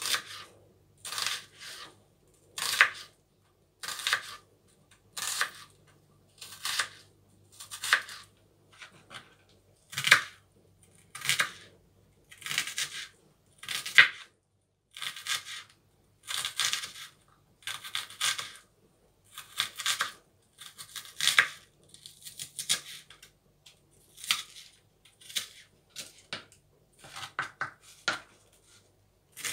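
Kitchen knife dicing an onion on a plastic cutting board: a crisp cut through the onion ending in a tap on the board, repeated at a slow, even pace of about one cut a second.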